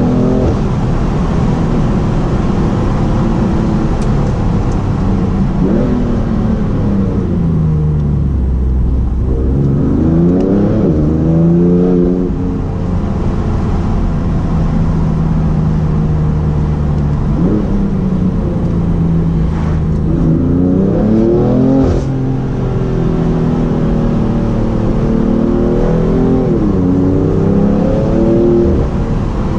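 BMW M3 F80's twin-turbo inline-six with an M Performance exhaust, pulling hard through the gears. The engine note climbs and then drops sharply at each gear change, several times over. A few sharp cracks come from the exhaust.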